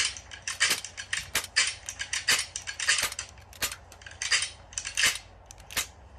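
CO2 blowback BB pistol being handled: a run of sharp metallic clicks from its mechanism, about two or three a second and irregularly spaced.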